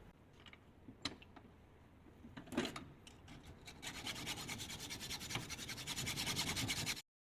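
A few light clicks and knocks, then rapid, even back-and-forth scraping strokes, about five a second: the scrap-built hammer being worked by hand with an abrasive. The strokes cut off suddenly near the end.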